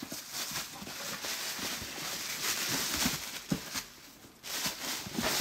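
Plastic bag and tissue-paper wrapping crinkling and rustling as boots are handled in a cardboard shoebox, with a few light knocks and a sharper one at the end.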